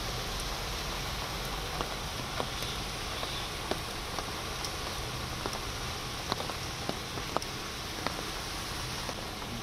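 Steady rain falling on a waterlogged road, with scattered sharp drop hits close by and car tyres swishing through the standing water.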